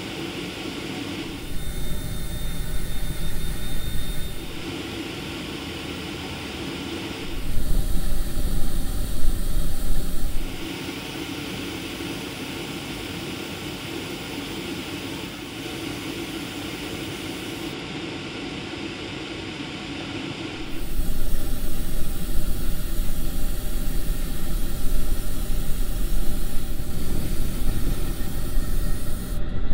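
Airbrush spraying paint onto plastic model parts: a steady hiss of air. At several sudden cuts it switches to louder stretches of a deeper rushing sound, the longest from about two-thirds of the way in.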